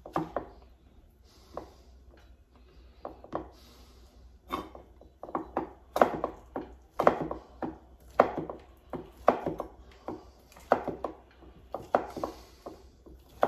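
Knife chopping beef liver on a cutting board, the blade knocking on the board. A few scattered knocks come first, then a steadier run of chopping at about two strikes a second from around four seconds in.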